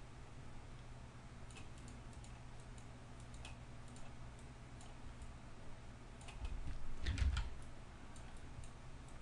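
Scattered light computer clicks over a low steady hum. About seven seconds in there is a low thump together with a quick cluster of clicks.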